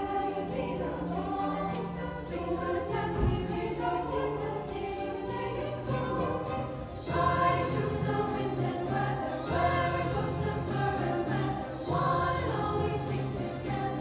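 Youth choir singing a Christmas choral piece in several parts, accompanied by piano.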